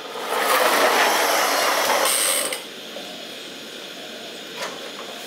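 A small plastic toy car's gears whirring and rattling for about two seconds as it is pushed along a concrete floor.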